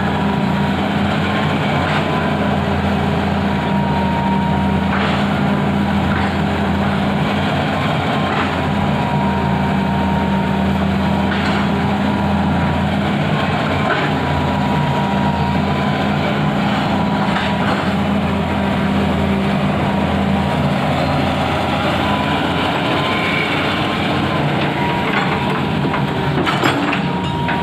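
Hitachi hydraulic excavator's diesel engine running steadily, with a thin high whine over it and a few faint knocks.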